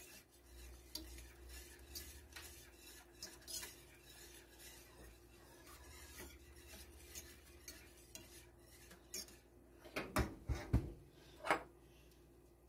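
Wire whisk stirring béchamel sauce in a stainless steel pan: a faint, irregular scraping, then a few louder metal clinks of the whisk against the pan near the end.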